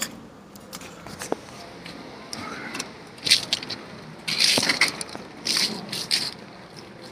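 Irregular scraping, rustling and clicking, in a string of short noisy bursts that are loudest between about three and six seconds in.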